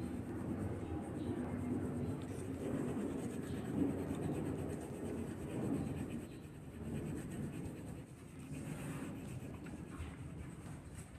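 A coloured pencil shading on paper, a continuous scratchy rubbing as the lead is worked back and forth. It grows quieter in the second half.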